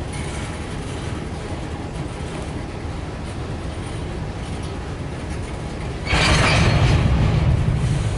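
Empty grain hopper cars of a freight train rolling past: a steady rumble, then a louder rattling clatter about six seconds in. The hollow rattle is the sign that the cars are empty.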